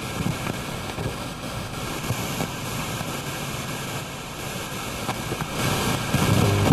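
FM radio static hissing as the tuner sweeps between stations, with faint flickers, growing louder over the last second or so.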